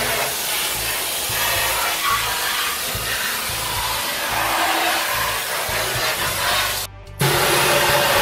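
A handheld pistol-grip spray gun on a hose hisses steadily as it sprays over a car's bare steel floor pan. The hiss breaks off briefly about seven seconds in, then resumes.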